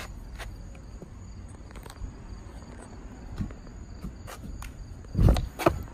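Skateboard and feet thumping down on grass twice near the end, the first thump the louder. Insects chirp steadily in the background, with scattered light ticks throughout.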